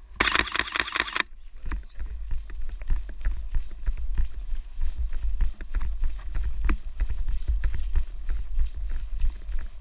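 A camera shutter firing in a rapid continuous burst for about a second. Then a person running on a dirt trail: quick irregular footfalls and knocks over a steady low rumble.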